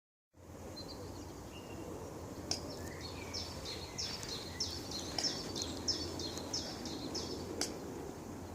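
A songbird singing a run of quick falling notes, about three a second, from about four to seven seconds in, with a few softer chirps before it. A few sharp clicks sound now and then over a steady low outdoor background rumble.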